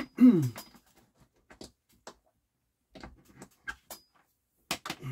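Hands handling a corded rotary tool and its cord: scattered light clicks and knocks. Just after the start comes a brief loud sound that falls in pitch.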